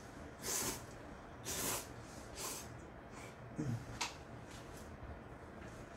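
Ramen noodles being slurped from a bowl: four or five short, hissy slurps about a second apart.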